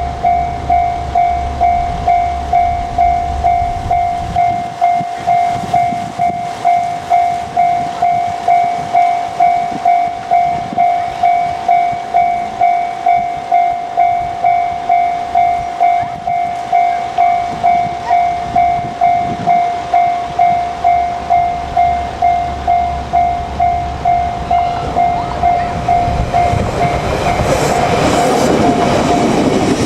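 Japanese level-crossing warning bell ringing in an even, repeating ding, a little under two strikes a second. Near the end the running noise of an approaching JR Kyushu 817 series electric train rises over it.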